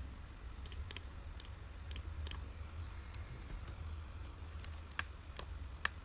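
Computer mouse clicking: about ten sharp single clicks at irregular intervals, over a low steady hum.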